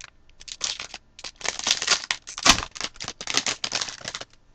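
Trading card pack wrapper being torn open and crinkled, in rapid crackly bursts, with one sharp snap about two and a half seconds in.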